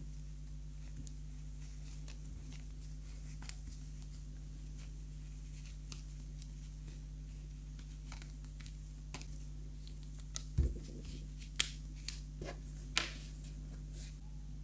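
Small clicks and taps of objects being handled over a steady low hum. A dull knock comes about two thirds of the way in, followed by a few sharper clicks.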